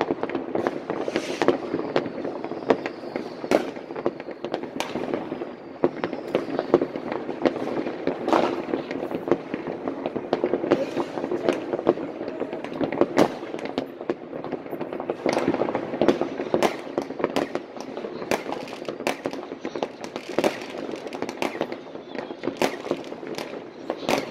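Rockets and firecrackers going off all over a neighbourhood: a dense, unbroken run of sharp bangs and crackles, near and far. A couple of faint falling whistles sound a few seconds in.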